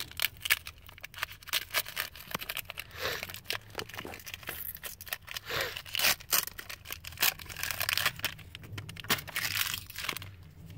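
A foil Pokémon TCG booster pack being torn open and crinkled by hand: an irregular run of crackles, rips and rustles.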